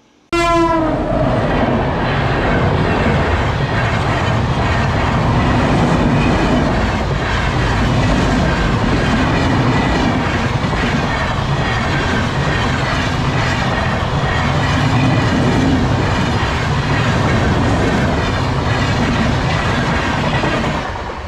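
Mumbai Mail express train passing at speed. A horn blast sounds just after the start and slides lower in pitch as the locomotive goes by, then the coaches rumble and clatter steadily over the rails.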